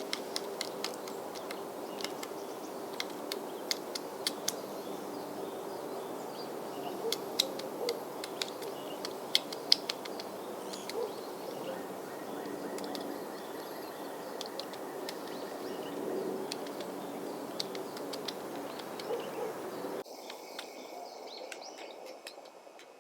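White-backed woodpecker making short, sharp sounds at irregular intervals, over a steady low hum. The background changes abruptly about 20 seconds in.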